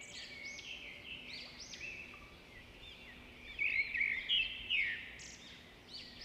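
Recorded birdsong, a run of repeated high chirps and trills, played back through a smartphone loudspeaker. The sound is thin, with nothing below the chirps.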